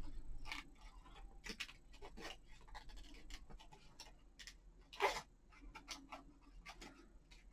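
Small scissors making short, irregular snips through paper as a printed flower is fussy-cut, with one sharper snip about five seconds in.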